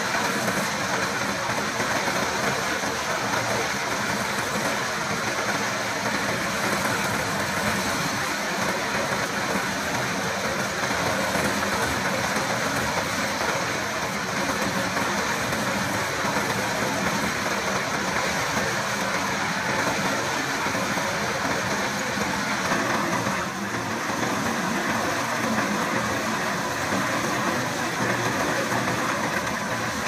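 Compact track loader's diesel engine running steadily while its hydraulics drive a large hole-saw manhole cutter through asphalt.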